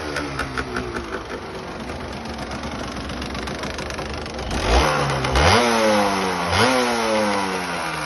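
Honda MTX 125 JD05's single-cylinder two-stroke engine running, just revived after more than ten years standing. It settles to a steady run, then is revved three times in the second half, each rev rising sharply and falling back.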